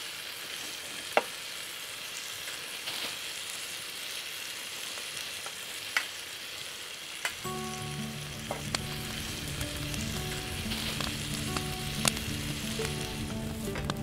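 Tepsi kebabı sizzling in a covered pan over a charcoal fire, with a few sharp pops. Background music comes in about halfway through.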